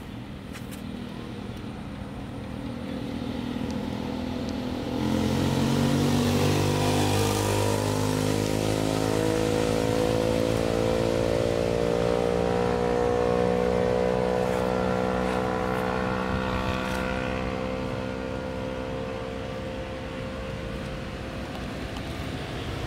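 A motorbike engine running close by. Its sound swells about five seconds in, its pitch climbs slowly and then holds steady, and it eases off near the end.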